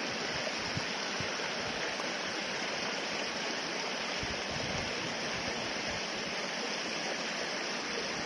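Steady rushing of flowing stream water, an even hiss that does not change.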